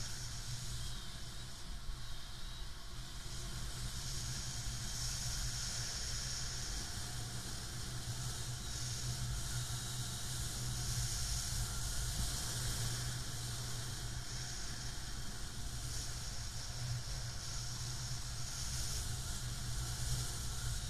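Steady rushing wind noise on the camera microphone as a paraglider launches and flies.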